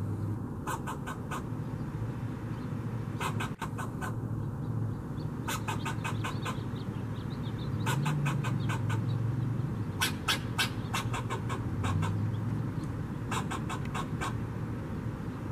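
Fox squirrel giving its angry alarm chatter: short runs of rapid, sharp barks, several to a run, repeated every one to three seconds, over a steady low hum.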